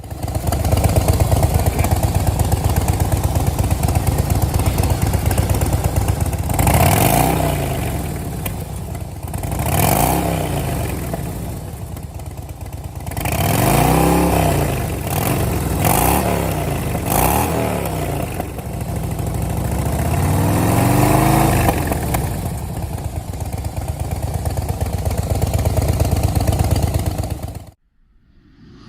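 Harley-Davidson Softail V-twin through a Handmo shorty GP exhaust, idling with a loud, deep rumble and being revved several times, each rev rising and falling back to idle. It cuts off suddenly near the end.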